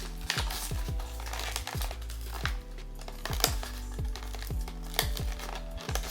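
Background music with a steady bass-drum beat, over crinkling of blind-box packaging being handled.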